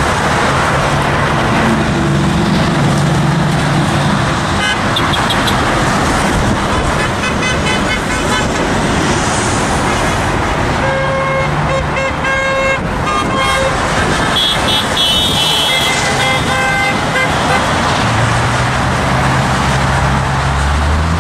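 Steady roadway traffic passing below an overpass, with car horns honking several times, most of them in the second half: drivers honking in support.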